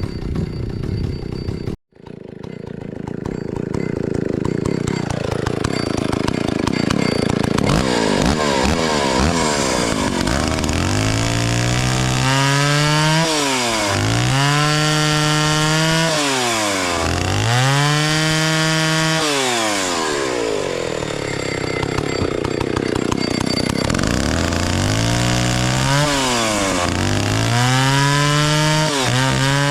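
Vintage 1960s Stihl 041 AV two-stroke chainsaw running, its engine rising to high revs, holding, then dropping back several times.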